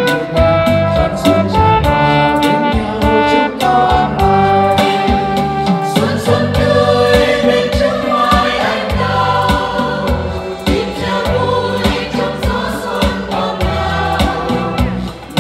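A small women's choir singing a Vietnamese Catholic hymn in several parts, with electronic keyboard accompaniment keeping a steady beat.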